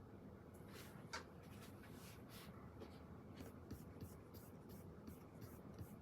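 Pen writing on paper: faint, quick strokes that start about half a second in and come a few times a second.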